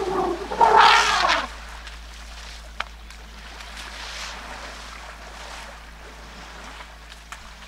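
A young elephant bull trumpets loudly for about a second and a half at the start, a call that bends up and down in pitch. After it, water sloshes and splashes steadily as the bulls wrestle in the waterhole.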